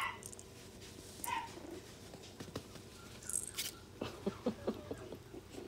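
Chihuahua puppy moving among plush toys on carpet: two short high squeaks in the first second and a half, then light rustling, scuffling and clicks around four to five seconds in.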